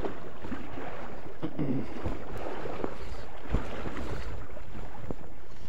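Waders sloshing and stepping through shallow, flowing river water, over a steady rush of river and wind buffeting the microphone, with a low thump about three and a half seconds in.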